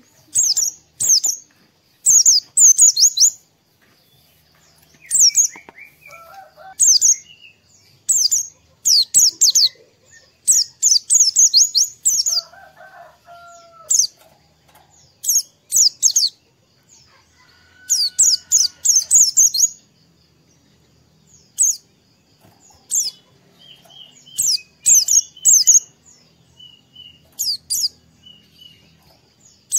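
White-eye (pleci) singing: about a dozen short bursts of rapid, very high-pitched twittering chirps, separated by pauses of a second or so. Fainter, lower whistles sound in some of the gaps.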